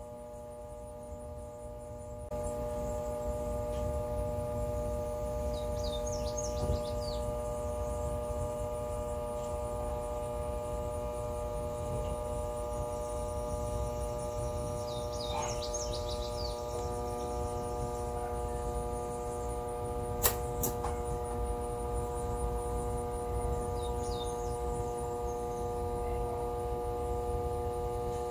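Vintage Proctor Silex blender's small electric motor running continuously, being run toward burnout: a steady droning hum with several steady tones, growing louder and rougher about two seconds in. Two sharp clicks come about two-thirds of the way through.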